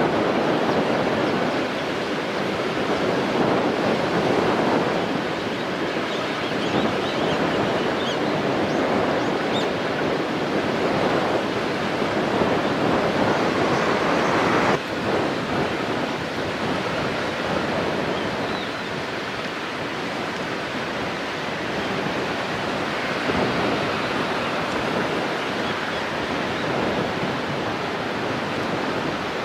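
Strong wind rushing and buffeting against the microphone, a steady noise that swells and eases every few seconds.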